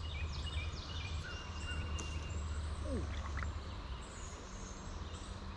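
Creekside ambience: a steady low rumble with several faint, short, high descending bird chirps.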